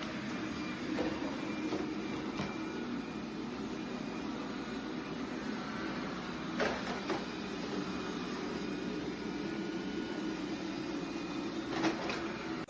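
A steady low mechanical hum with a few light knocks.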